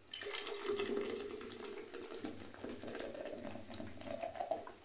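Soda water poured from a plastic bottle into a plastic jug of mint-lemon syrup, splashing and fizzing hard as the carbonation foams up. The pour is loudest in the first second or so and then eases off into steady fizzing.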